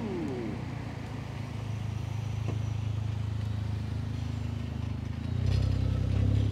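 Car engine running at low revs as a car rolls slowly past, a steady low rumble that grows louder about five seconds in as it comes close.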